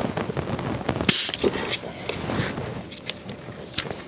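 Scattered clicks and handling rattles from a portable cordless tire inflator and its hose, its pump already shut off on its own at the set pressure, with a short hiss about a second in.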